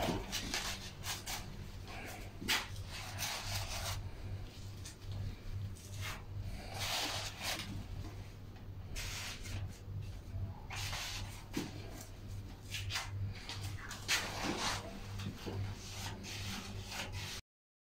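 Rustling and rubbing of artificial flowers being pressed into the arrangement's foam by hand, in irregular swishes over a steady low hum. The sound cuts off shortly before the end.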